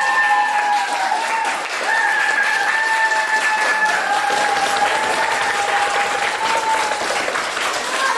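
Audience applauding, with long high-pitched whoops of cheering held over the clapping.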